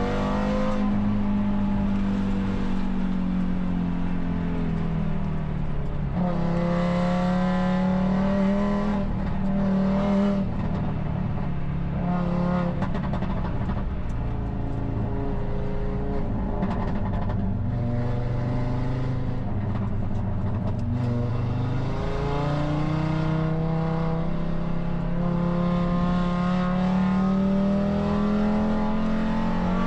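Audi RS3 race car engine running hard on track. Its pitch falls and climbs as the car slows and accelerates through corners, with a few sudden jumps and drops in pitch.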